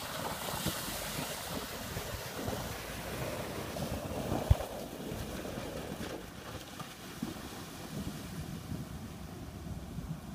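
Water splashing and churning around a 2013 Jeep Wrangler as it drives through a shallow river, with wind buffeting the microphone. The rush eases a little as the Jeep pulls away, and there is one sharp low thump about halfway through.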